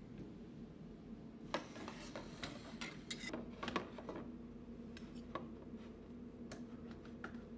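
Steel knife and fork clinking and scraping against a bowl while cutting a steak: a quick cluster of sharp clicks and scrapes in the first half, then scattered single ticks, over a faint steady hum.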